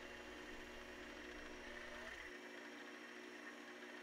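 Faint steady hum of a lathe spinning a stainless steel trumpet mouthpiece while emery cloth is held against it to smooth the surface. The deepest part of the hum drops away a little past halfway.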